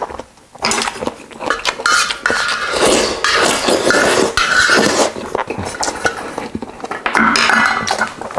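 Metal spoon clinking and scraping against a yellow metal ramyun pot lid used as a plate, with slurping of noodles and broth from the spoon.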